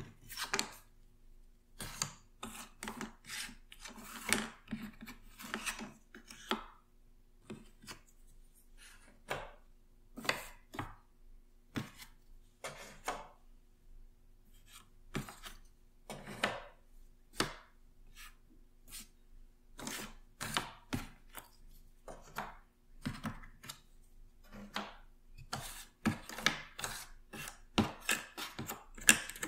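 Loose cardboard jigsaw puzzle pieces sifted and spread by hand in a sorting tray: irregular clicking, clattering and rustling of the pieces, denser near the end.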